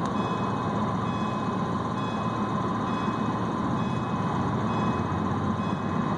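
Car engine idling steadily, heard from inside the cabin, with coolant at about 213°F, just short of the temperature at which the electric cooling fan switches on, so the fan is not yet running.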